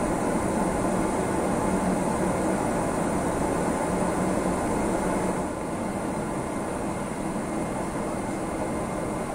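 Steady cabin noise inside a Boeing 777-300ER on the ground, the rumble of its GE90 engines and air conditioning with a thin high hiss over it. It drops a little in level about five and a half seconds in.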